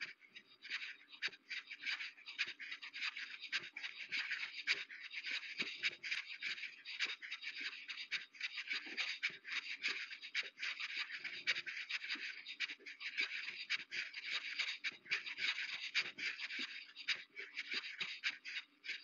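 Footsteps crunching on a loose gravel surface while walking, a continuous irregular crackle of small stones shifting underfoot.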